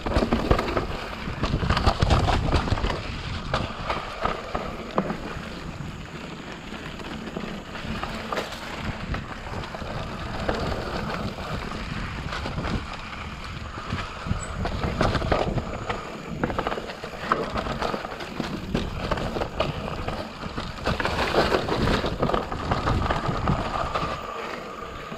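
Santa Cruz Nomad full-suspension mountain bike ridden down dirt singletrack: tyres rumbling over the trail, with frequent clicks and rattles from the bike over bumps, and wind buffeting the microphone.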